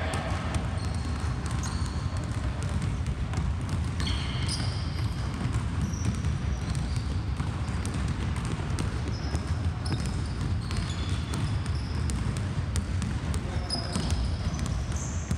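Basketballs dribbled on a hardwood gym floor, several players at once, in a quick run of bounces, with short high sneaker squeaks over a steady low hum.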